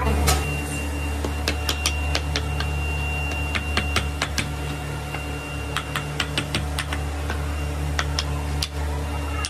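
A hand hammer knocking the sand mould off a red-hot, freshly cast brake cylinder: irregular sharp taps and knocks, some in quick clusters, over a steady low hum.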